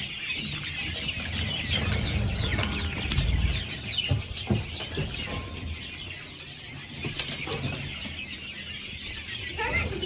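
A flock of young bobwhite quail flapping and fluttering their wings as a hand grabs them from the brooder, with many short high peeps. The flapping is loudest about two to three and a half seconds in.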